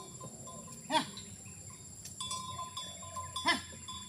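Ox hauling a loaded wooden cart up a wet, slippery asphalt slope, its hooves finding little grip. Faint steady ringing tones run throughout, with two loud short pitched sounds, about a second in and about half a second before the end.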